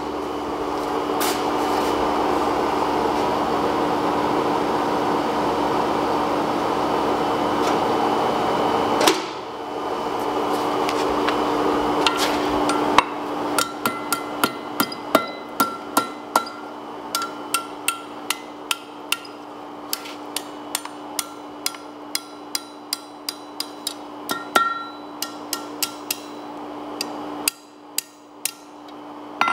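A steady rushing noise for the first nine seconds or so, then a blacksmith's hand hammer striking a red-hot steel rod on an anvil: many ringing blows in a rapid, uneven run as the rod is bent into a looped tool handle.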